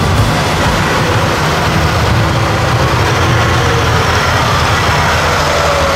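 Off-road vehicle engine running steadily with a deep, even hum.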